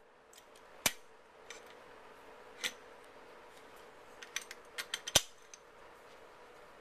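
Steel parts of an M1 Garand's bolt and receiver clicking and clinking as the bolt is worked back into the receiver by hand. There are a few scattered sharp clicks, then a quick cluster of them about four to five seconds in, the loudest near the end of that cluster.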